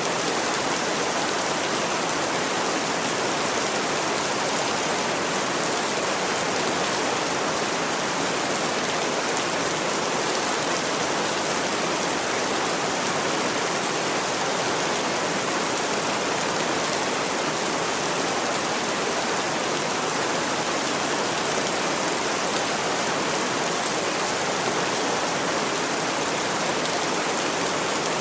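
Steady rain falling on a roof: an even, unbroken hiss of rain that holds the same level throughout.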